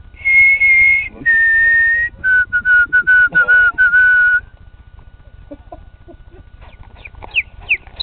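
A person whistling an imitation birdsong: two long, clear, loud notes, the second a little lower than the first, then a quick run of short notes at a lower pitch. After a pause, quieter short falling whistles come in near the end.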